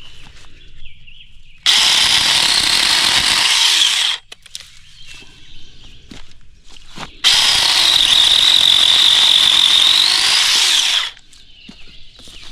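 Battery-powered RLSOO mini chainsaw with a 6-inch bar, run in two bursts of about two and a half and nearly four seconds as it cuts cedar limbs, its electric motor and chain giving a steady whine that rises a little near the end of the second cut. Light knocks and rustling in the pauses between.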